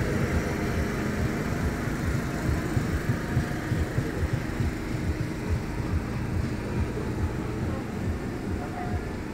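Float vehicles' engines running, a steady low rumble with irregular low thuds through it.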